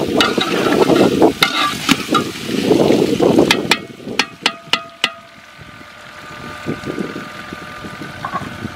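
Metal ladle stirring and scraping duck and potatoes frying in an aluminium pot, with sizzling. About halfway there are about six sharp metal clinks of the ladle against the pot, then the sound drops to a faint sizzle.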